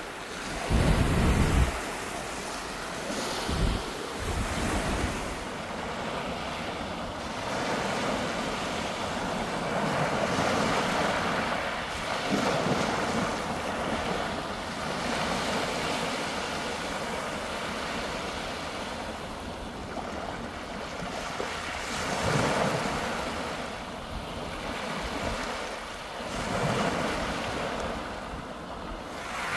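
Small waves breaking and washing up onto a pebble shingle beach, the surf swelling and easing every few seconds. Wind gusts buffet the microphone with a low rumble near the start, loudest about a second in.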